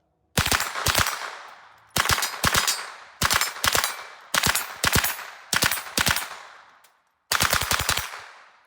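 Rapid .22 LR gunfire from an AR-15 pistol fitted with a CMMG .22 LR conversion kit and a Franklin Armory binary trigger. The fire comes in about six quick strings of several shots each, every string ringing off briefly before the next.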